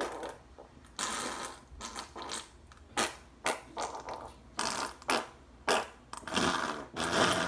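A string of fart sounds: a dozen or so short sputters with gaps between them, then a longer, louder one near the end. She blames them on the beans she ate.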